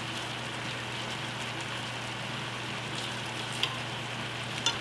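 Cabbage with carrots and turnip sizzling steadily in a deep frying pan, over a steady low hum. A couple of faint ticks near the end.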